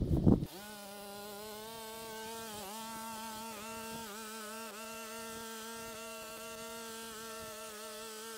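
A few loud knocks, then a trimmer's motor starts about half a second in and runs at a steady high-pitched buzz, dipping briefly in pitch twice.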